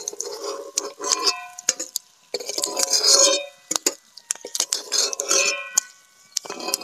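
Metal spatula scraping across a metal wok and clinking against it and a steel plate, in many sharp clicks and short ringing scrapes, as fried boiled-egg halves are lifted out of the oil.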